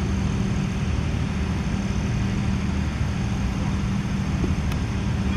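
Steady low engine-like drone with a constant pitch, like a motor idling. A faint click comes near the end.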